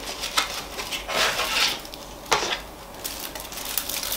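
A chocolate bar's paper-and-foil wrapper being opened by hand, rustling and crinkling, with a sharp click about two seconds in.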